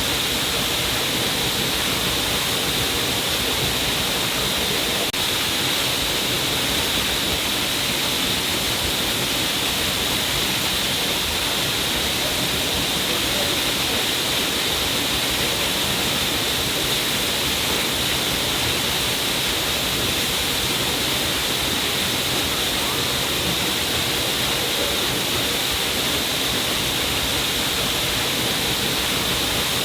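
A stream of water falling down a rock cliff: a steady, even rush of splashing water with no change in level.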